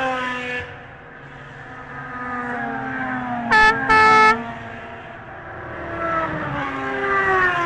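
2007 Formula One cars' 2.4-litre V8 engines passing at speed, the pitch falling as each goes by: one at the start, one in the middle and one near the end. About three and a half seconds in come two short blasts of an air horn, the second a little longer; they are the loudest sounds.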